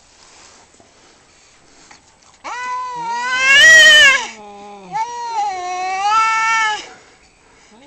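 Male cats caterwauling in a fight standoff: two long wavering yowls, the first starting about two and a half seconds in and rising to the loudest point, the second following straight after.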